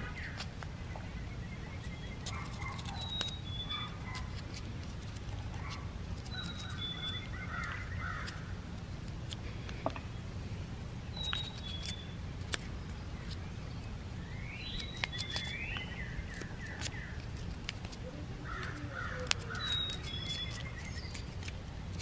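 Northern cardinals singing: short whistled phrases, some slurred up or down, recurring every few seconds, over a steady low background rumble. A few light clicks come through near the middle and end.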